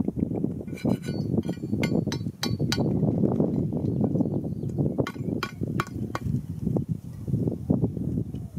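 A small metal hand pick striking and scraping stony dirt, giving sharp metallic clinks in two runs, each a handful of quick strikes, over a steady low rumble.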